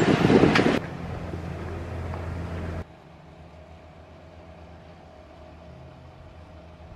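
Wind noise on the microphone, then a steady low engine hum that drops suddenly to a quieter hum a little before three seconds in.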